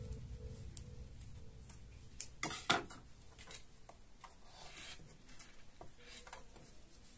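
Faint scattered clicks and light knocks of small objects being handled, the loudest a quick pair a little under three seconds in, as background music fades out at the start.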